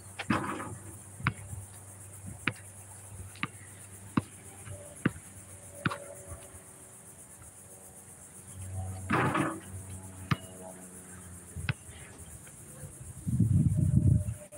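A basketball bouncing on an outdoor concrete court, sharp knocks roughly once a second, with two short, noisier hits of the ball on the hoop, one right at the start and one about nine seconds in. A steady high insect buzz runs underneath, and a low rumble comes in near the end.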